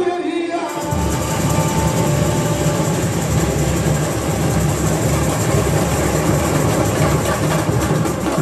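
Samba school bateria (drum corps) coming in about a second in, after the end of a sung line: a dense, loud, steady wall of bass drums and snare drums playing together.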